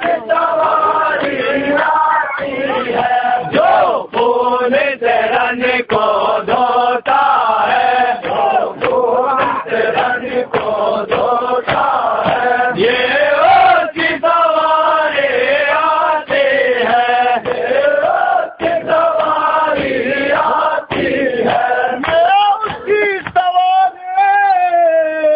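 A crowd of men chanting a noha, a Shia mourning lament for Muharram, in unison. The melody rises and falls with short breaks between lines.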